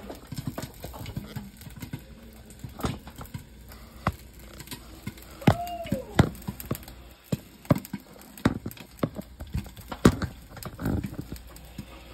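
Popcorn kernels popping in a lidded cast-iron skillet: sharp, irregular pops, some loud, scattered through the whole stretch.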